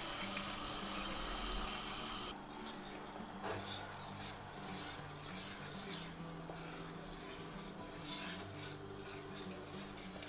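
Coil whisk scraping against the sides and bottom of a stainless steel pot as it stirs a thick walnut and grape-molasses (pekmez) paste, an irregular rubbing, rasping sound. The sound changes abruptly about two seconds in.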